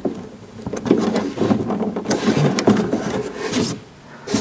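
Hands rubbing and scraping on the plastic door panel and wiring connector inside a car door, with small irregular clicks, while working the connector's tab loose.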